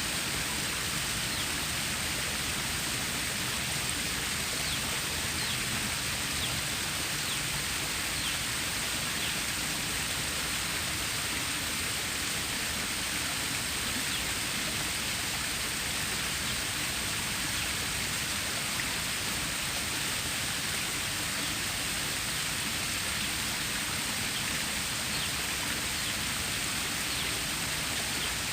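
Stream water flowing steadily: an even, unbroken rush of water with no change in level.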